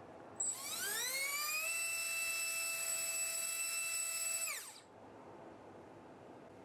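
RCX RS1407-3400KV brushless motor spinning an HQ 3030x4 four-blade propeller on 4S, run up to full throttle: a high-pitched whine starts abruptly, climbs in pitch over about a second and holds steady. It then drops away and stops about four and a half seconds in.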